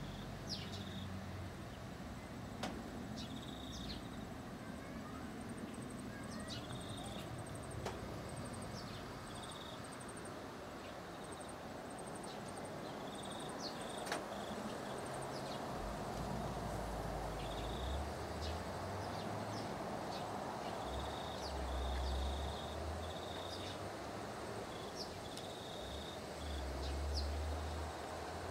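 Outdoor ambience of insects chirping in short, repeated high trills, with a few sharp bird chirps. A low rumble swells a few times in the second half.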